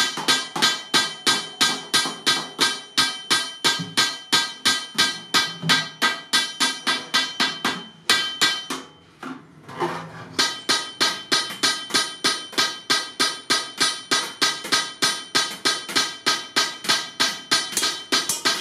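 Hammer striking a sheet-iron milk can around the edge of its bottom, in an even run of about three blows a second, each with a bright metallic ring. The blows stop briefly about halfway through while the can is turned, then go on.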